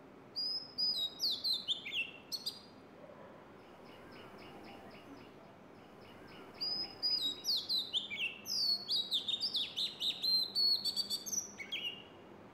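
Oriental magpie-robin singing spiritedly in two bouts of quick, falling whistled notes. The first bout comes just after the start and lasts about two seconds; the second, longer and louder, runs from about six and a half seconds to near the end. Between them a fainter rapid series of high notes is heard.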